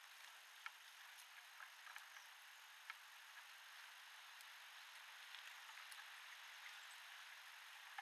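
Faint steady outdoor hiss with scattered short ticks and chirps from small birds feeding.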